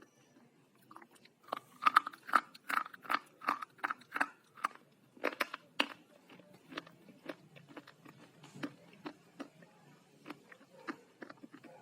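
Pieces of slate being bitten and chewed: a run of sharp, loud crunches about three a second, easing after about six seconds into softer, sparser chewing crunches.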